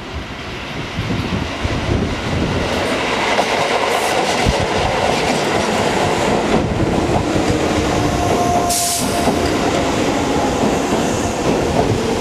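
Tobu Noda Line 8000-series electric train running in along the station platform, its wheels rumbling and clattering over the rail joints and growing louder over the first couple of seconds. From about eight seconds in, thin squealing tones sound over the rumble, with a short hiss just before nine seconds.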